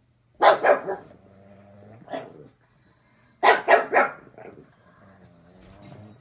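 Pug barking in short clusters: two or three quick barks about half a second in, a single bark near two seconds, then three more around three and a half seconds and a weaker one after.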